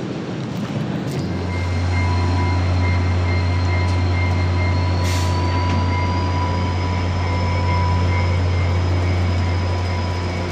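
VIA Rail Canada passenger cars rolling past at close range: a steady low rumble of wheels on the rails that sets in about a second in, with thin steady whining tones above it.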